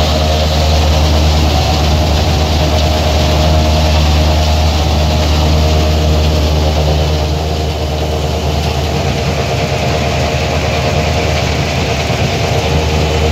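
Diesel tractor of about 190 horsepower running steadily at working speed, driving a silage blower through its PTO while chopped corn silage is unloaded into it to fill a silo. Loud and even throughout.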